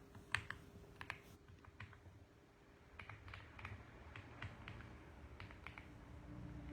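Typing on a mechanical keyboard: a few sharp keystrokes in the first second or so, a pause, then a run of softer keystrokes.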